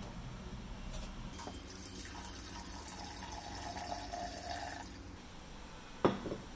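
Water poured into a rice-cooker pot of fish in tomato sauce, splashing and filling steadily, then stopping about five seconds in. A short, sharp, loud hit comes near the end.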